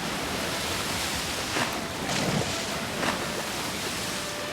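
Sea surf on the Bay of Bengal shore: waves breaking and washing in a steady rush, swelling a few times.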